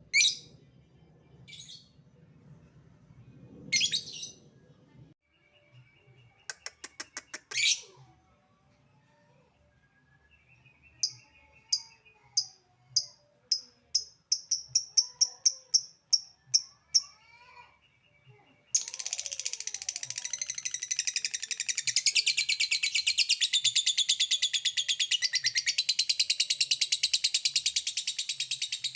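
Lovebird calling. First come a few sharp chirps and a quick run of clicking 'ngetik' notes, then a string of repeated calls that speeds up. About two-thirds of the way in, it breaks into a long, unbroken, rapid chattering trill (the 'ngekek') that keeps going.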